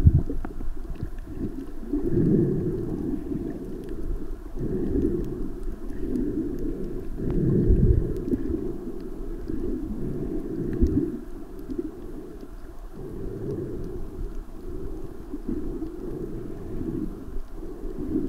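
Muffled underwater rumble of moving water heard through a camera held underwater, swelling in slow surges every two to three seconds.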